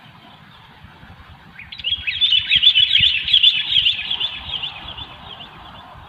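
Sooty-headed bulbul (kutilang) giving a fast, chattering burst of song notes. It starts about two seconds in, lasts about three seconds and then fades.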